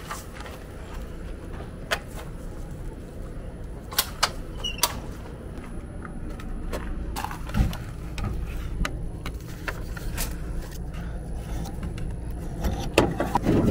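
Scattered sharp clanks and knocks of camping gear being handled, over a steady low hum.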